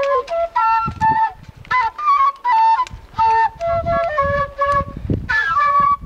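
An Andean end-blown flute plays a tune of short, separate notes that step up and down, with brief breaks between phrases.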